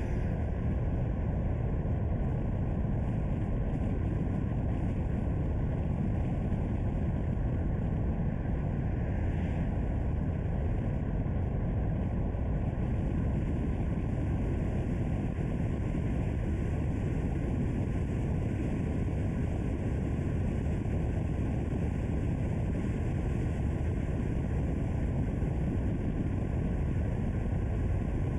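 Steady low rumble and hiss of a car being driven: tyre and wind noise, even throughout with no engine note standing out.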